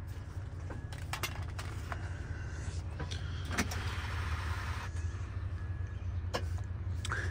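International truck's diesel engine idling with a steady low hum. Keys jangle and small clicks come from the cab, and a short hiss sounds about halfway through.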